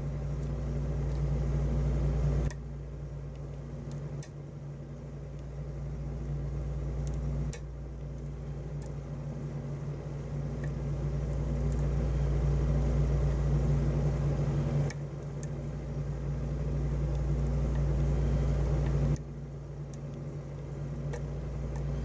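A steady low hum with a hiss over it, stepping abruptly up and down in level several times. A few faint sharp clicks come from a pick working the pins inside a lock cylinder.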